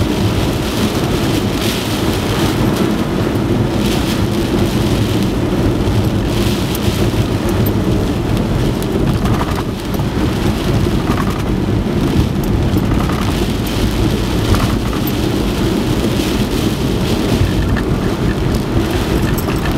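Typhoon rain and wind: a steady, loud rushing with a deep rumble underneath.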